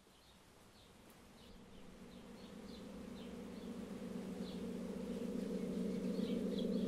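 Short bird chirps repeating about twice a second over a low, steady buzzing drone that fades in from very faint and grows steadily louder.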